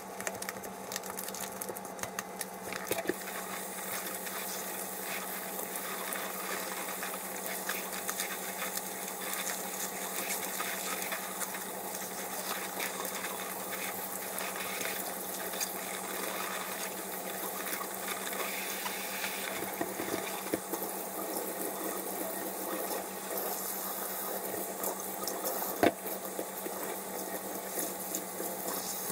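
Tap water running into a stainless-steel kitchen sink while plastic-wrapped meat and salmon packages are scrubbed with a soapy sponge and rinsed, with a few light knocks, the sharpest near the end, over a steady low hum.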